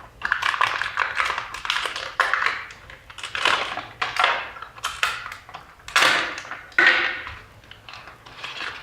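Cardboard packaging and paper handled by hand: irregular rustling and crinkling with short taps and clicks.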